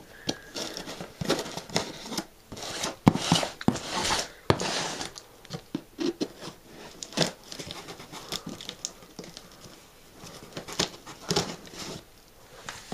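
Folding knife blade cutting through packing tape along the seams of a cardboard box: a run of short, irregular scraping cuts, busiest in the first half.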